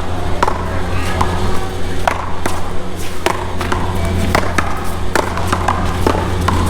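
Paddleball rally: a rubber ball cracking off paddles and smacking the wall and court in irregular sharp knocks, over a steady low rumble.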